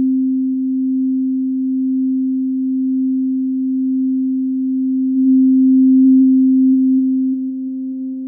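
A single held synthesizer note, pure and steady, swelling a little about five seconds in and easing off near the end: the opening drone of the intro music.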